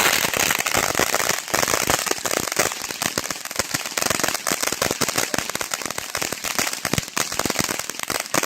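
"Just Because" consumer firework going off: a dense, unbroken run of rapid crackling pops, many a second.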